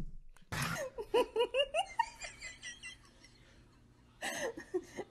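High-pitched laughter: a quick run of laughs rising in pitch about a second in, dying away, followed by a short burst of noise near the end.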